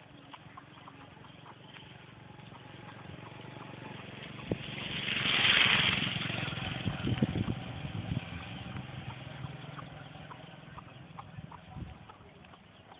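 A motor vehicle passing by on the road: its engine hum and tyre noise swell for about five seconds, peak near the middle, then fade away.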